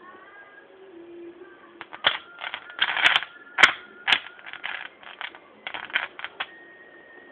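Oxyhydrogen (HHO) gas bubbles from a homemade plate-type electrolysis cell popping as a gas soldering iron's flame ignites them. From about two seconds in there is an irregular run of sharp cracks, some single and some in quick clusters, loudest around the middle.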